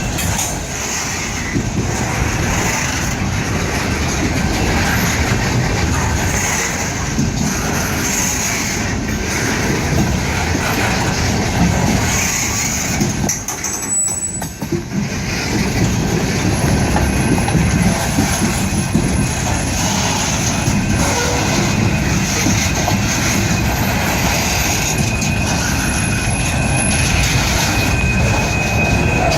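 Freight train cars rolling past with continuous wheel-on-rail rumble and clatter, dipping briefly about halfway through. A thin, steady wheel squeal comes in near the end.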